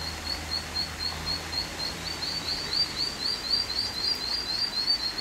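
Ducklings peeping: a quick, regular run of short high peeps, about two or three a second at first, then faster and louder from about two seconds in.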